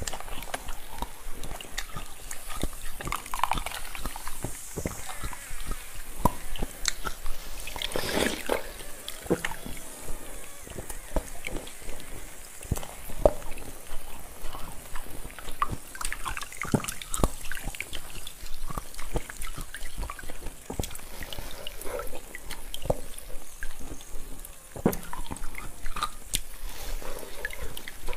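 Close-up eating of a large block of cola-soaked freezer ice: many sharp crackles and clicks of the ice as it is bitten and sucked, with wet slurps and cola dripping back into the bowl.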